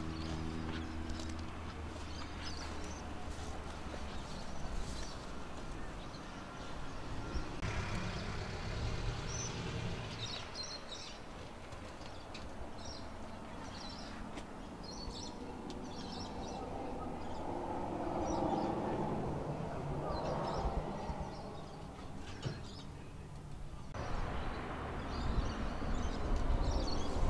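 Outdoor ambience: birds chirping now and then over a low background rumble, with the background changing abruptly twice.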